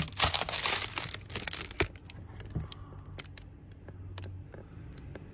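Crinkly rustling of a van's window covering being pulled aside close to the microphone, loudest in the first two seconds. After that come scattered light clicks over a faint low hum.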